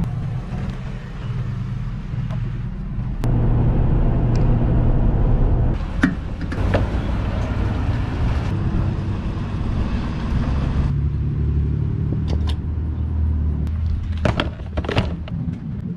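Truck engine and road noise heard from inside the cab, followed by a steady hum at a fuel pump with a few sharp clicks and knocks as a diesel nozzle is handled near the end.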